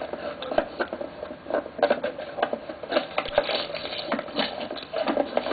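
Camcorder handling noise: irregular knocks, taps and rustles as the camera is moved about and pointed.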